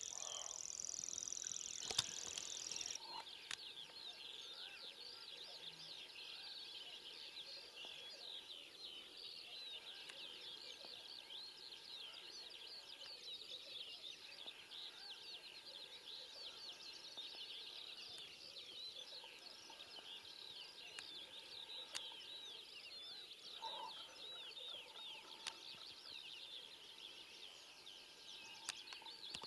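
Faint chorus of many birds chirping and singing at once, a dense busy twittering. For the first three seconds a steady high insect trill sounds over it, then stops.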